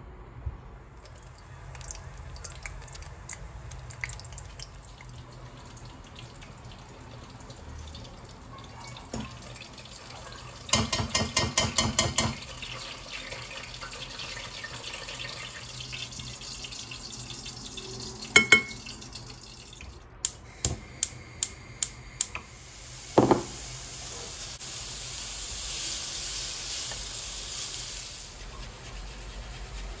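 Kitchen food-preparation sounds: knife and utensil clicks and taps. There is a quick run of about eight taps near the middle and another run of about six a little later, then a single thump and a soft hiss near the end.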